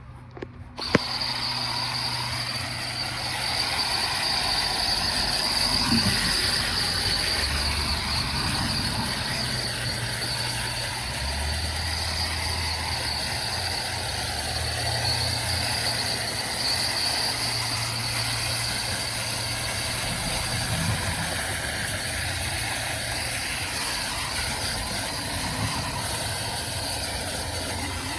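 A cleaning machine, most likely a vacuum, switches on about a second in and runs steadily with rushing air, a high whine and a low hum while the furnace ductwork is cleaned out.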